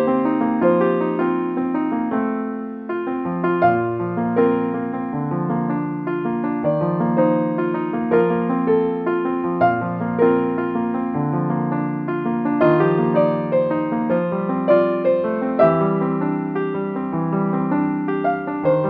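Background piano music: a slow, gentle piece of held chords and single notes.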